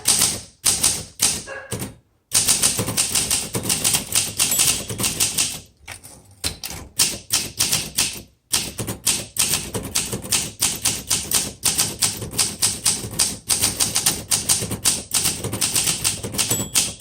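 1962 Olympia SM7 manual typewriter being typed on: quick runs of key strikes, with brief pauses about two, six and eight seconds in.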